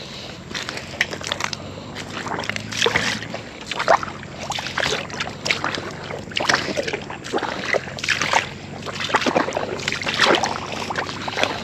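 Footsteps squelching and splashing through wet mud and shallow tidewater at a walking pace, one or two steps a second.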